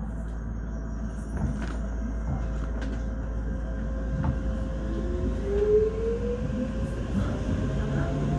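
Docklands Light Railway train pulling away and picking up speed, with a steady low rumble and occasional clicks from the running gear. From about halfway in, the traction motors give a steadily rising whine as the train accelerates.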